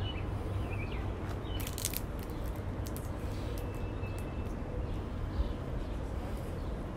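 Outdoor ambience: a steady low rumble with a few sharp clicks about two seconds in and faint bird chirps.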